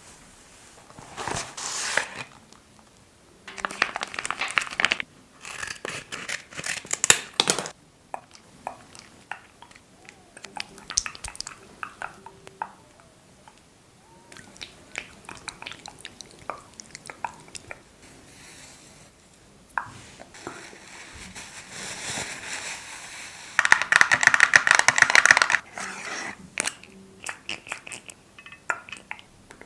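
Makeup products handled up close: a string of sharp clicks and taps, broken by several bursts of scratchy, crinkling noise, the longest and loudest a few seconds before the end.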